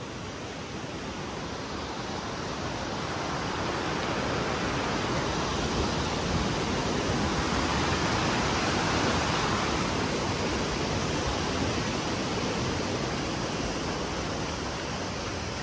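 Rushing water of a river waterfall, a steady even rush that grows louder toward the middle and eases off near the end.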